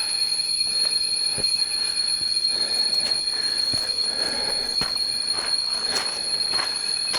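Steady, high-pitched drone of jungle insects, several unbroken tones held at once, with a few faint knocks scattered through.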